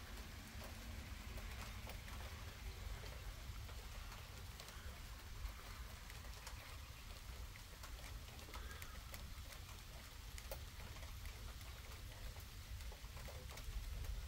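Steady thunderstorm rain falling, with individual drops heard as many scattered small ticks.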